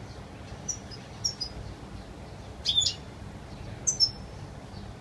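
European goldfinch giving a few short, high chirps: quick notes about a second in, then two louder ones near three and four seconds in, over a steady low rumble.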